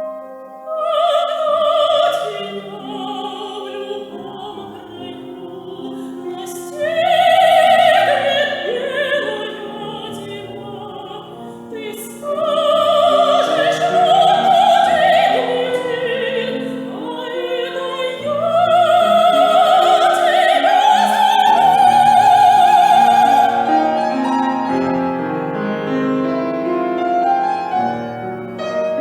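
Operatic soprano singing with piano accompaniment: sung phrases that build to long, loud held notes with vibrato, the piano playing on underneath and between phrases.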